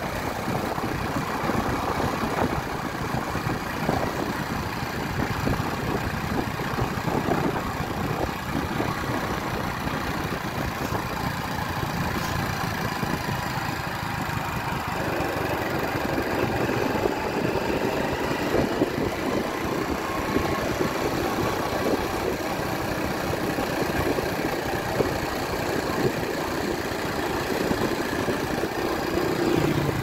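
Motorcycle engine running as the bike rides along a paved road, under a steady rush of wind and road noise. The engine sound grows fuller and a little louder about halfway through.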